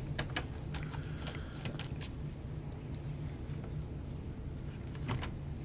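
Small clicks and light scratches of a Phillips screwdriver turning out a laptop battery screw. There are several clicks in the first two seconds and one more near the end, over a steady low hum.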